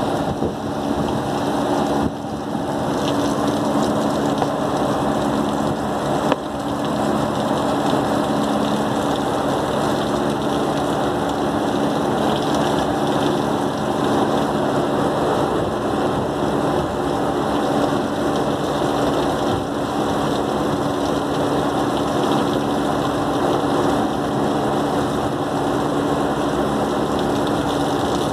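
Steady machine hum under the hiss of a water jet washing the condenser coils of an air-cooled chiller, with two small knocks a few seconds in.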